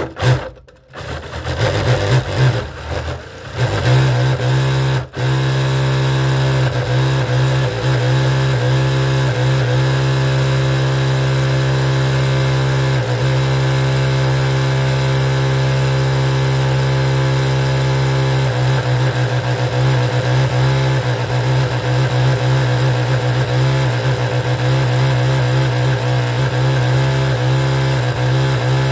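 Electric sewing machine stitching: a few short starts and stops, then about four seconds in it runs steadily at speed, motor humming under the rapid needle beat.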